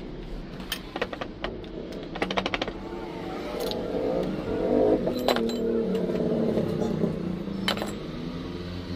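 Metal clinks of a hand wrench against a motorcycle rear shock absorber held in a steel bench vise, with a quick run of clicks about two seconds in. From about three seconds in, a vehicle engine runs nearby, its pitch wavering up and down.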